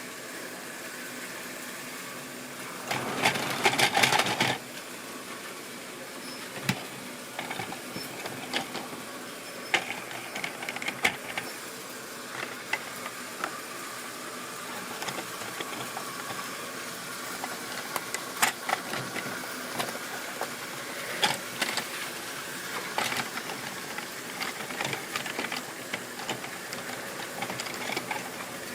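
Model railway train running on the track: a steady small-motor whirr with scattered irregular clicks and rattles from the wheels and stock. A louder rattling burst comes about three seconds in.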